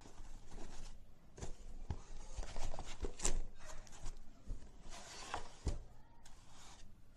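Cardboard box being opened and handled: irregular rustling and scraping of card, with many short sharp clicks and taps.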